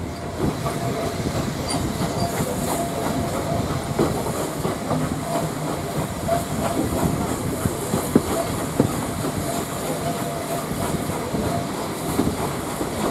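Steam-hauled auto train running, heard from an open carriage window: a steady rumble with the wheels clicking over the rail joints and a faint on-and-off squeal from the wheels on the curve.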